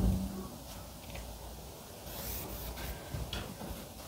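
Chalk writing on a chalkboard: a short scratching stroke and a few light taps as characters are written.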